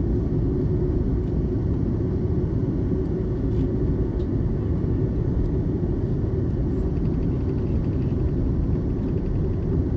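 Steady low rumble of an Airbus A330's jet engines and rushing air, heard from inside the passenger cabin.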